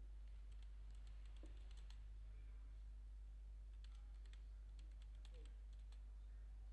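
Faint typing on a computer keyboard, in two short bursts of key clicks: one about half a second in and another about four seconds in. A low steady hum runs underneath.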